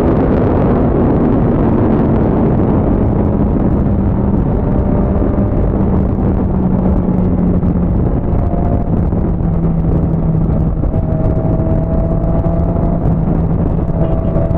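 Motorcycle engine running at a steady highway cruise, its pitch easing down slightly over the first several seconds and then holding, under heavy wind rush on the microphone.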